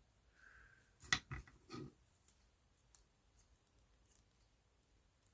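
A short cluster of clicks and rattles about a second in, then a few faint ticks: small metal parts and wire of an old light switch being handled and fitted by hand.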